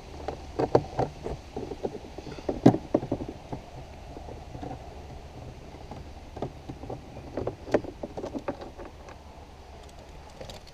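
Irregular clicks and small knocks of a Torx driver being fitted to and turning out a T20 bolt in a car's plastic door trim, thickest in the first few seconds and again past the middle.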